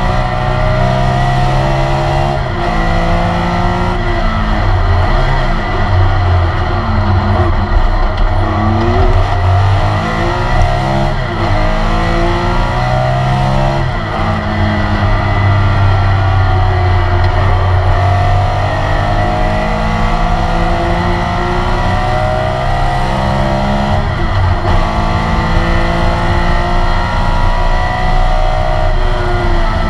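Porsche 911 RSR's air-cooled flat-six heard from inside the cockpit under racing load, the revs climbing through the gears and dropping sharply at several shifts and braking points.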